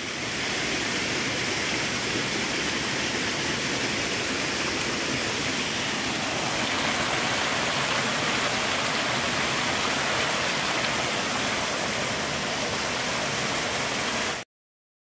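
Steady rushing of a small mountain creek tumbling in little waterfalls over mossy boulders. The sound stops abruptly near the end.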